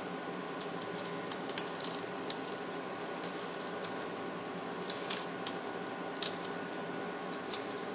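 Steady whir of a running water-cooled PC's fans and pump, with scattered light clicks.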